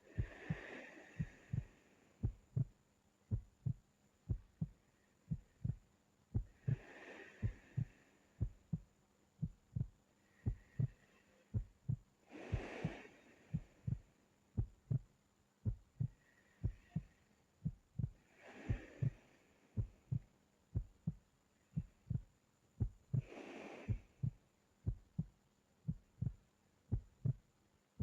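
A steady, even heartbeat of short low thumps, with slow, soft breaths of a sleeping person about every five to six seconds.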